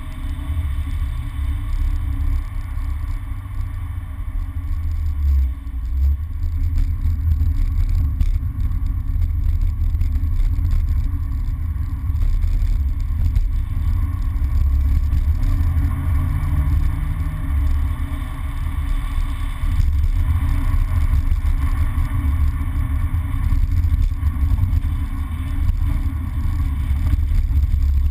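A MINI driving on wet tarmac, heard from inside the cabin: a steady low engine-and-road rumble with tyre hiss over it.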